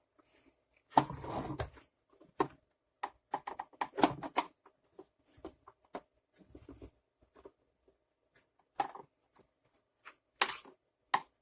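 Irregular clicks, knocks and scraping of plastic vacuum-cleaner housing parts being handled and worked apart during disassembly, with a longer scraping burst about a second in.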